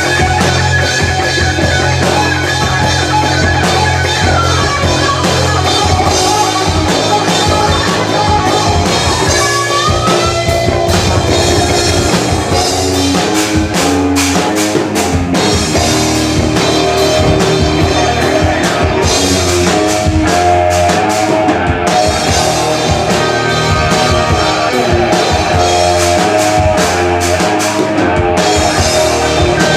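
Live rock band playing loud: electric guitar over drum kit and bass, with a guitar lead bending and sliding in pitch a few seconds in.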